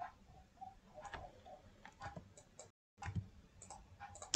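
Scattered light clicks of a computer mouse over faint room noise, with a brief total dropout about three seconds in.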